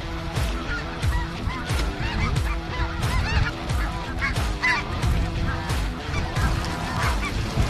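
A flock of geese honking continuously, many overlapping calls, as the birds come in to land over the decoys.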